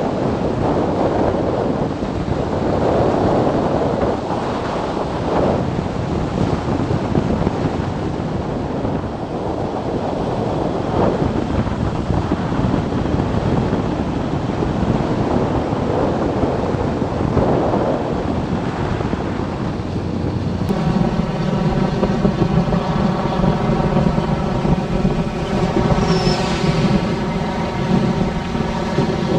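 Wind buffeting the microphone of a moving motorcycle, with the engine buried under it. About two-thirds of the way through, the wind noise drops away suddenly and the motorcycle engine's steady note comes through clearly.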